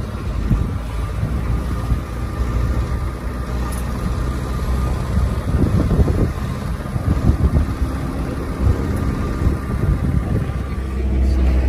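Car driving slowly along a street, heard from inside the cabin: a steady low engine and tyre rumble, briefly busier about six seconds in and growing louder near the end.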